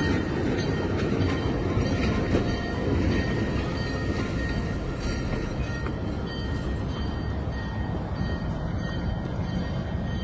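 Freight train rolling along the rails, a steady rumble of the wagons, easing off slightly after about six seconds.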